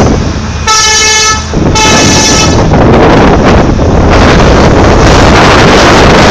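A horn sounds two blasts of a little under a second each, close together, near the start. After them comes a loud, steady rush of wind noise on the microphone.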